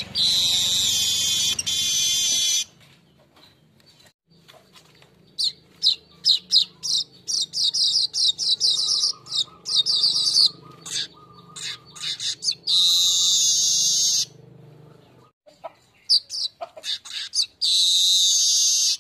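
Manyar weaver bird (golden-headed manyar) song, played as a lure recording: runs of quick, sharp, high chirps, each phrase ending in a long, dense buzzy wheeze. There are three buzzes: at the start, about two-thirds of the way in, and near the end.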